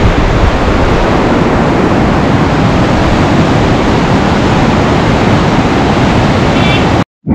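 Loud, steady rushing noise of a moving vehicle, road and wind noise together, which cuts off suddenly about seven seconds in.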